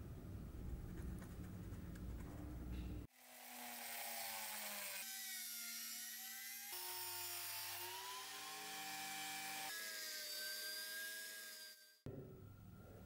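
Handheld rotary tool spinning a thin abrasive cut-off wheel, grinding through a small screw held in pliers. A high whine starts suddenly about three seconds in, its pitch dipping and recovering as the wheel bites, then stops near the end.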